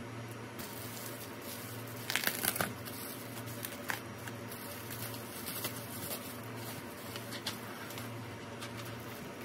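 Plastic bubble wrap crinkling and rustling in bursts as it is handled and peeled off a box, loudest about two seconds in. A steady low hum runs underneath.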